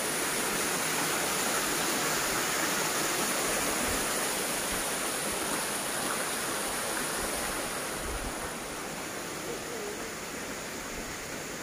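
Steady rushing of water at a small stop dam's gates and spillway, easing off a little near the end.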